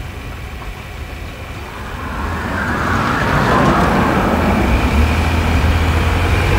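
Two cars driving past slowly. Tyre hiss swells as the Mercedes-Benz EQC 400 electric SUV passes about three to four seconds in, then the low hum of the white combustion-engined Mercedes sedan following it grows louder near the end.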